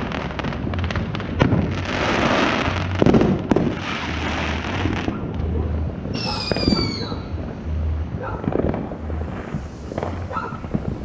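Fireworks going off: repeated bursts of crackling, hissing sparks and a few sharp bangs, with a whistling firework falling in pitch about six seconds in.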